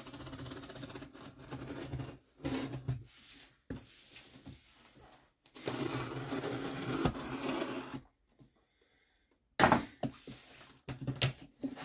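Packing tape on a cardboard shipping box being slit with a small blade, a rasping buzz in several separate strokes. Near the end come sharp crackles as the cardboard flaps are pulled open.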